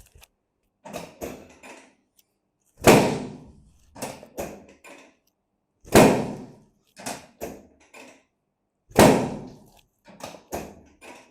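Heavy thuds about every three seconds, each with a short ring-out and followed by two lighter knocks, in a repeating pattern.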